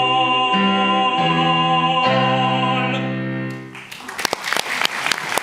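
A tenor holds the long closing note of an operetta aria over piano chords that change three times beneath it; voice and piano stop together about three and a half seconds in. After a brief fade, audience applause starts and carries on to the end.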